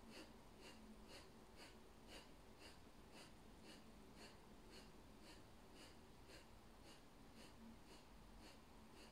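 Kapalabhati breathing: short, sharp exhalations pushed out through the nose in a steady rhythm of about two a second, faint.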